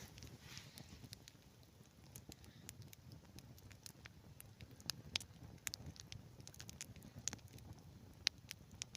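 Wood campfire crackling as it catches, with irregular sharp pops, a few louder ones in the second half.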